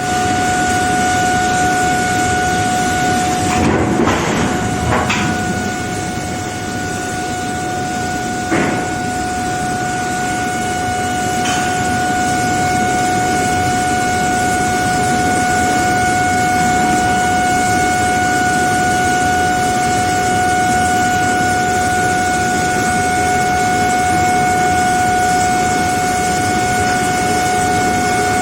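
Intermediate-frequency induction melting furnace running, giving a steady high-pitched hum over continuous foundry noise, with a few short knocks.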